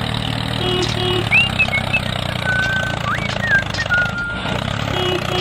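Tractor engine running steadily with a low drone, with high whistling chirps sounding over it.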